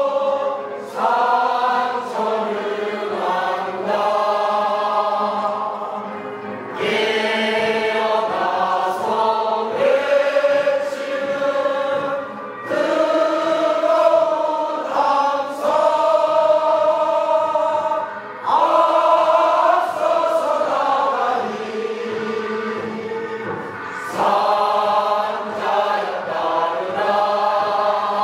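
A large crowd singing a slow song together in unison, in long held notes that step from pitch to pitch phrase by phrase.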